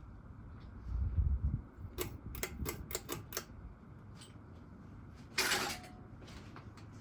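Steady hum of a Craftmade Hi-Tech ceiling fan, with a low thump about a second in, a quick run of sharp clicks, and a short noisy burst near the end.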